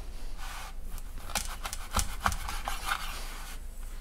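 Chef's knife sawing through a slab of raw pork belly crusted with a salt-and-spice rub on a cutting board: a run of rasping strokes with a few sharper knocks around the middle.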